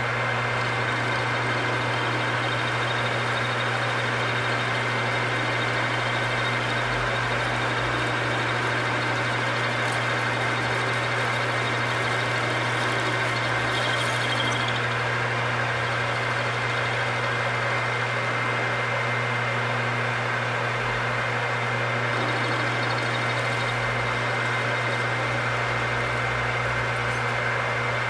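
Metal lathe running steadily while the cutting tool turns a round journal on the end of a part held in a four-jaw chuck. There is a steady low hum with a thin, steady high tone above it, and no distinct knocking from the cut.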